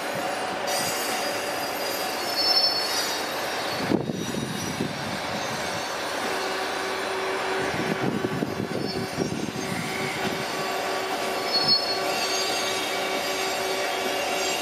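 Steel train wheels squealing against the rails over the steady rumble of a train moving through the station yard, with high squeals rising twice, near the start and again toward the end. A steady hum joins about halfway through.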